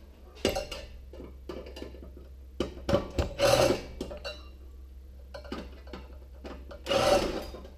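Sheet-metal stove parts and hardware clanking and clattering as they are handled and pulled apart: a string of sharp knocks, with two longer clatters about three and a half seconds in and near the end.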